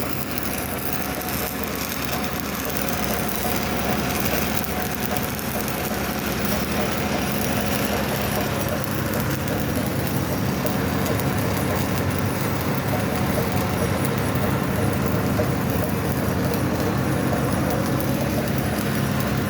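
Stick-welding arc crackling steadily as the electrode burns, with a steady low hum underneath.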